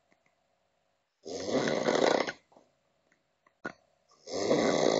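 A person in a drunken sleep snoring heavily: two long, rattling snores about three seconds apart, the second starting near the end.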